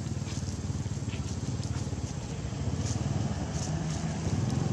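A steady low engine drone, with faint scattered ticks above it.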